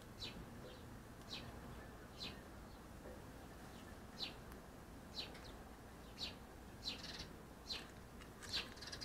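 A bird calling, repeating one short, high, downward chirp about once a second.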